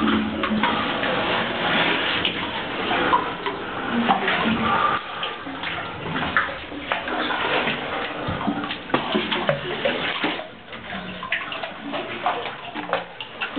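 Water splashing and sloshing irregularly as a caver wades and swims through a flooded cave sump, with many small splashes. It grows somewhat quieter for the last few seconds.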